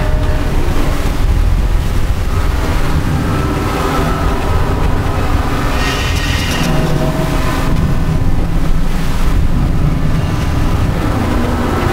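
Big metal spring, amplified and run through effects, worked with a metal rod: a loud, continuous low rumbling drone with metallic ringing tones, and a brighter, harsher scraping surge about six seconds in.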